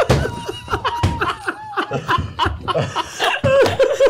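Several people laughing together, their laughs overlapping in short repeated bursts.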